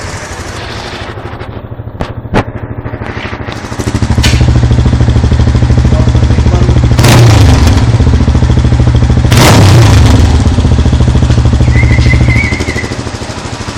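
Motorcycle with a loud exhaust idling, then revved and held at higher revs in a deep, loud rumble for about eight seconds, with two brief surges partway through, before settling back to idle near the end. A couple of sharp clicks sound about two seconds in, while it idles.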